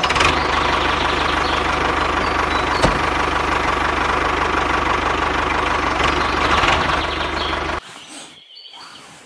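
Tractor engine running steadily with a rapid, low knock, one sharp tick about three seconds in; it cuts off abruptly about eight seconds in.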